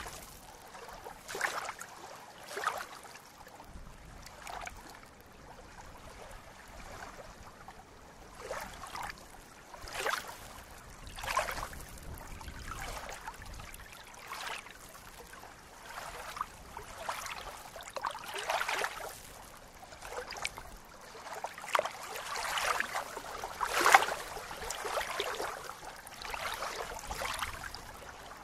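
Small waves of lake water lapping among reeds at the shore, in irregular soft splashes, with one louder splash about 24 seconds in.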